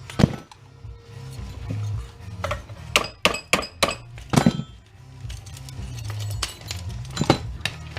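Brittle Bakelite housing being cracked and broken apart: a series of sharp cracks and clinks, several in quick succession in the middle, over steady background music.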